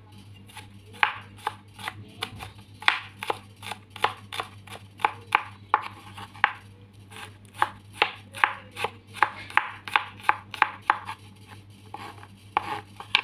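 Kitchen knife slicing garlic on a cutting board: a run of sharp knocks, about two to three a second and uneven in pace.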